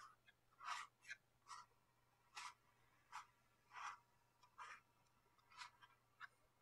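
A series of short, soft scratching strokes, about ten of them at irregular intervals of half a second to a second, like a brush, tool or nib drawn briefly across a hard surface.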